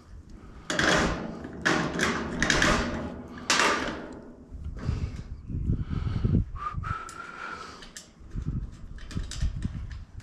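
Parts and hardware being handled during assembly: several scraping, rustling sounds in the first few seconds, then dull knocks and a brief squeak a little past the middle.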